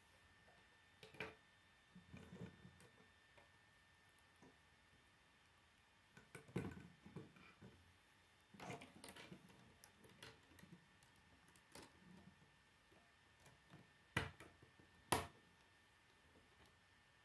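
Plastic K'nex rods and connectors clicking and rattling as they are handled and snapped together, in scattered bursts, with two sharp snaps near the end the loudest.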